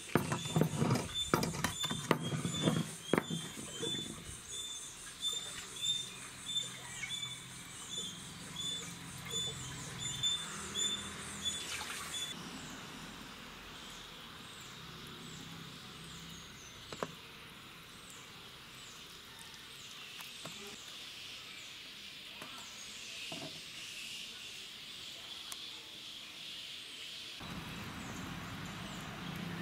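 A steady series of high chirps from a small creature, about two a second, that stops abruptly about twelve seconds in. Soft knocks and handling sounds come in the first few seconds as hands work masala paste into fish. After that there is mostly a faint background hiss with occasional clicks.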